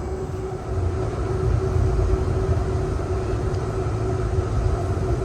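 Calgary CTrain light-rail train running, a steady low rumble with a steady hum over it that grows a little louder about half a second in.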